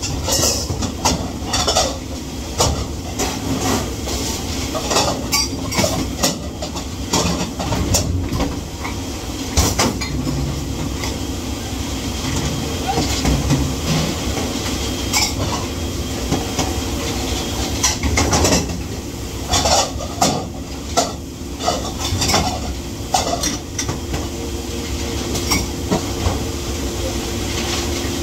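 Dishes and cutlery clattering and knocking together during dishwashing, with many short sharp clinks over a steady low rumble.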